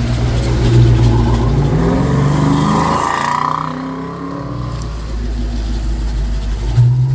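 Ford F-650 truck's engine running, rising in pitch as the truck accelerates over the first few seconds, then easing off. It comes back loud and steady near the end.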